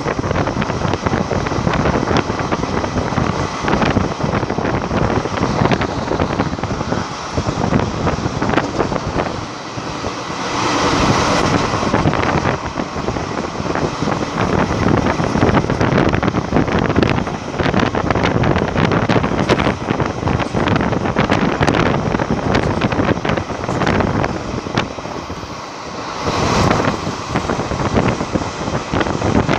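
Running noise of a moving passenger train heard from its open door: a steady rumble and clatter of the coach wheels on the rails, mixed with wind buffeting the microphone. Two brief louder rushes of noise come about a third of the way in and near the end.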